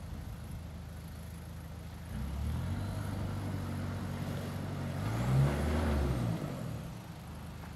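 Toyota Hilux 4x4's engine working at low revs as it crawls up a rutted dirt climb. The engine note comes up about two seconds in, the revs rise to a peak about five seconds in, then drop away near the end.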